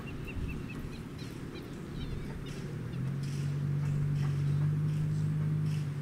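Outdoor lakeside ambience: small birds chirp in quick short series in the first couple of seconds, and a steady low hum comes in about halfway through and holds.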